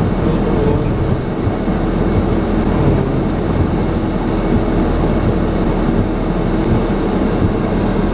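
Car engine and tyres running slowly under load, heard from inside the cabin while towing a camper trailer across wet, muddy grass: a loud, steady rumble.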